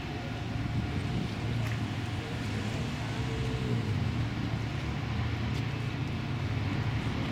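Towboat's diesel engines droning steadily and low, laboring hard as the boat pushes a heavily loaded barge tow upstream against the current.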